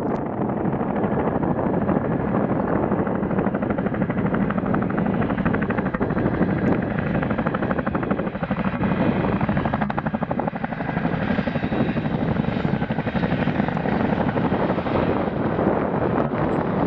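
Boeing CH-47F Chinook tandem-rotor helicopter approaching, its twin rotors beating in a rapid, steady chop. The sound gets brighter and fuller as it comes nearer in the second half.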